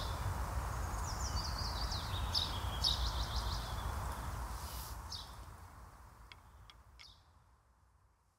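Outdoor ambience: small birds chirping and twittering over a low, steady rumble. It all fades out to silence over the last few seconds.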